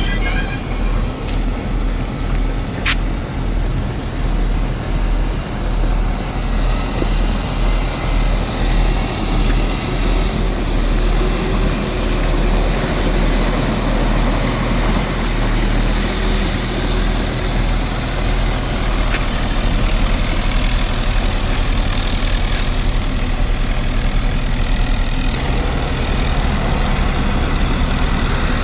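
Heavy road-construction machine's engine running. It gives a steady low hum, and its loudness swells about once a second for a few seconds before evening out.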